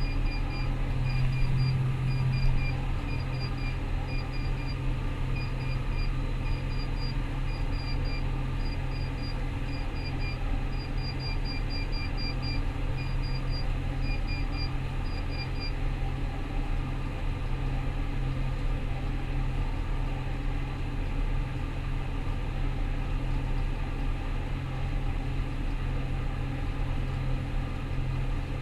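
Rostselmash Vector 425 combine harvester running with a steady drone. A short electronic warning beep repeats about once or twice a second, then stops about sixteen seconds in.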